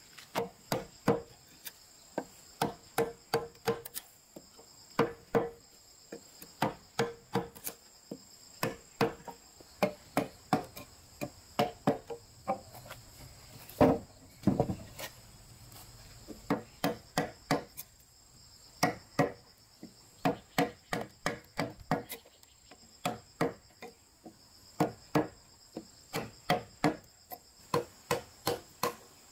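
Wooden mallet striking a steel chisel into a timber beam to cut a mortise: sharp knocks in quick runs of several strikes with short pauses between, and one heavier, duller knock about halfway. Insects drone steadily in the background.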